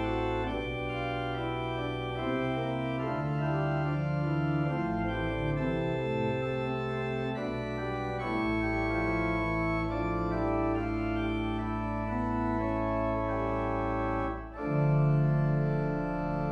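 The 1986 Boogaard/Elshout pipe organ playing sustained chords over a steady pedal bass. There is a short break between phrases near the end, then a louder chord.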